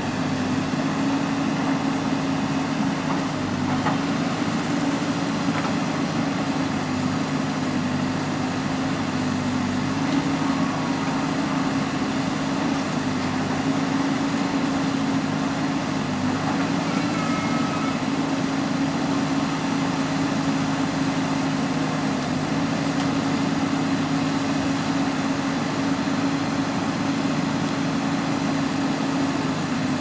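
JCB 3DX backhoe loader's diesel engine running steadily under hydraulic load while the backhoe arm digs and swings soil. Its pitch wavers slightly now and then.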